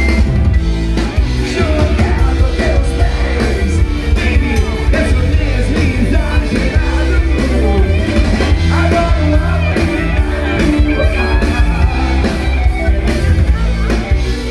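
Rock band playing loudly, with a singer over bass and drums.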